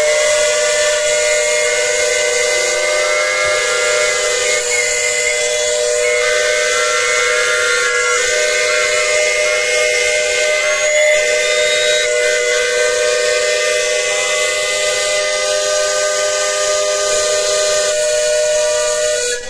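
Many steam whistles on miniature and full-size steam traction engines, all blown at once in one long, loud chorus of several steady pitches. They cut off together at the end.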